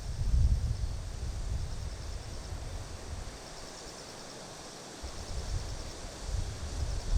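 Wind buffeting the microphone in gusts, easing off midway and picking up again near the end, over a faint steady chirring of grass insects.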